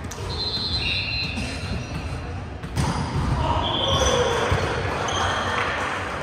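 Gym din during indoor volleyball: brief high squeaks, like sneakers on a hardwood court, near the start and again later. A sharp thud of a ball comes a little under three seconds in, over background voices in the echoing hall.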